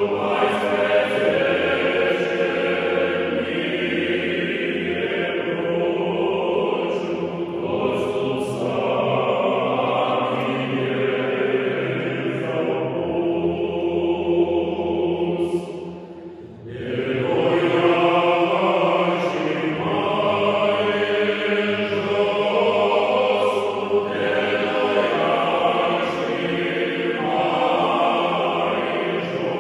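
Male choir singing a Romanian Christmas carol (colind) a cappella, in several parts, with a short pause between phrases a little past halfway.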